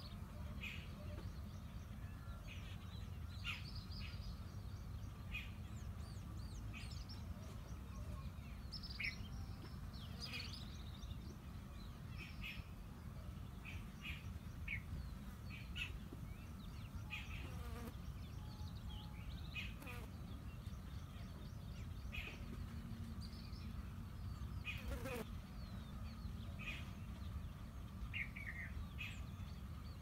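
Small birds chirping in short, scattered calls every second or so, over a steady low rumble of wind.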